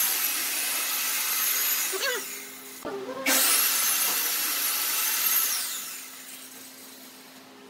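A power tool's motor runs in two bursts of about two to three seconds each, with a high whine. Each burst comes up to speed quickly and winds down at its end, over a steady low hum.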